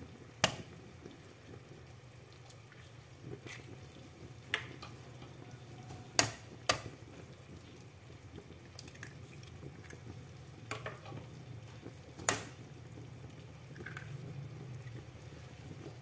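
Eggs tapped and cracked on the edge of a pot: a handful of sharp clicks, spread out with pauses of several seconds. Under them run a low steady hum and the faint sound of water simmering in the pot.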